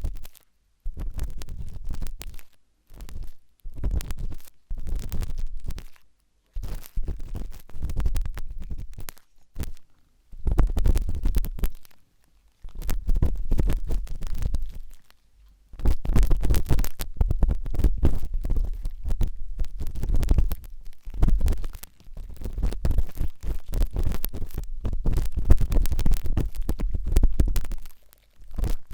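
Pointed toothpick scratching and scraping inside an ear for ear cleaning, with a low rumble under the crackly strokes. It comes in short bursts with brief silences between them, then runs almost unbroken through the second half.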